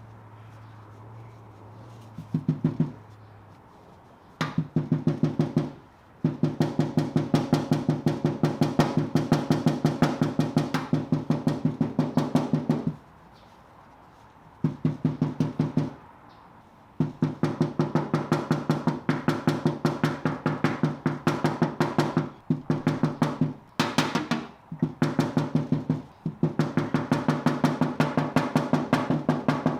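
Body hammer tapping the Kia Optima's sheet-metal fender over and over, working a dent and crease out. The fast, even taps ring with a metallic tone and come in runs of several seconds, with short pauses between them.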